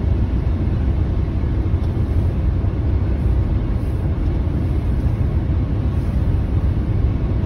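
Steady low rumble of a car cruising on a highway, heard from inside the cabin: road and tyre noise with the engine underneath.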